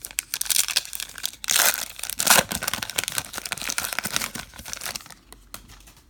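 A trading card pack's wrapper being crinkled and torn by hand, a dense crackling that comes in waves and fades out near the end.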